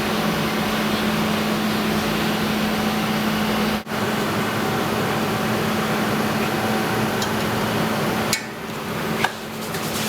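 Industrial powder-bed 3D printer running with a steady mechanical whir and a constant low hum. It cuts out abruptly for a moment about four seconds in. Near the end it drops quieter, with a couple of sharp clicks.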